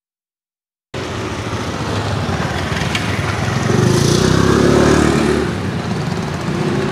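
A motor scooter's engine running as it rides along the street. It starts about a second in, grows louder to a peak around the middle, then eases off.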